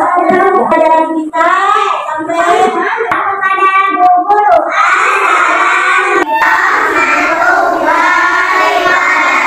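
Young children singing a song together, voices only.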